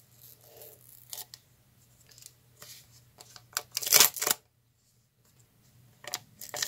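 A small handmade paper packet rustling in the hands and being torn open along a notch. A louder rip comes about four seconds in, with shorter rustles around it.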